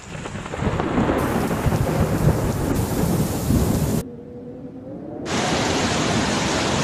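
Thunder rumbling over heavy rain for about four seconds. After an abrupt cut and a short quieter moment, a steady rushing noise of floodwater sets in near the end.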